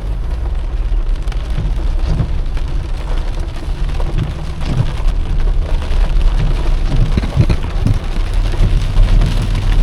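Heavy rain pelting a car, heard from inside the cabin as a steady loud hiss with scattered sharper hits and a low rumble underneath.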